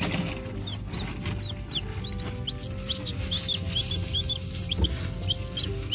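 Newly hatched chick peeping: short, high-pitched cheeps, a few at first and coming quicker and more often after about two seconds.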